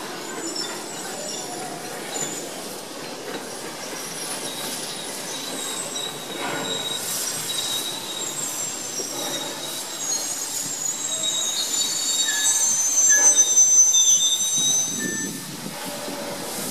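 Steam-hauled passenger train moving slowly, its carriage wheels squealing in high, wavering tones over the rumble of the train. It grows louder in the second half, loudest about three quarters of the way through.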